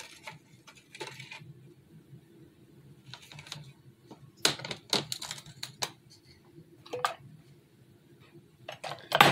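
Small glass jars being handled, clinking and knocking against each other and being set down on the table, in a few scattered sharp taps with a cluster of clatters about halfway through and another near the end, over a faint steady low hum.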